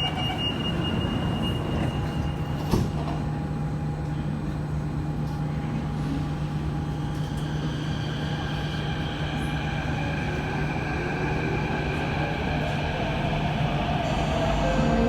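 Kawasaki-Sifang CT251 metro train running, heard from inside the car: a steady low hum with wheel-on-rail noise and one sharp knock about three seconds in. From about halfway, several high whining tones come in over the running noise.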